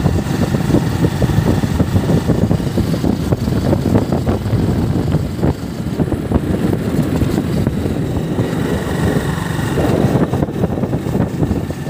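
Motorbike riding along a paved road: engine and tyre noise under a choppy rush of wind over the microphone.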